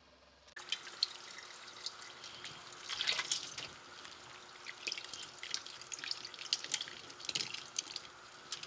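Water splashing and sloshing as a hand stirs cherries in a basin of soapy water, with the foam's bubbles crackling. It starts suddenly about half a second in.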